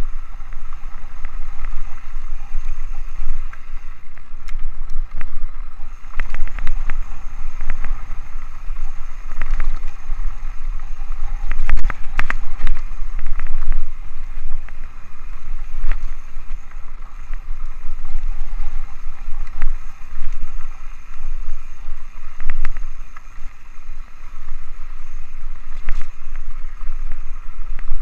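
Wind buffeting an action camera's microphone on a Rocky Mountain Altitude mountain bike riding a rough dirt singletrack, as a heavy rumble. Scattered rattles and knocks from the bike over bumps, in clusters a few seconds in, about midway and near the end.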